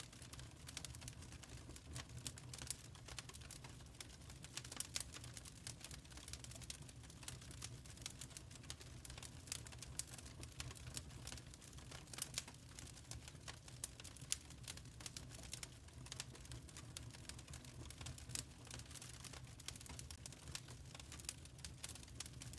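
Wood fire crackling in a fireplace: a steady stream of irregular sharp snaps and pops from the burning logs over a low steady rumble.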